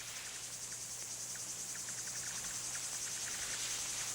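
Night insects chirring in a steady, high, rapidly pulsing trill, with faint scattered clicks.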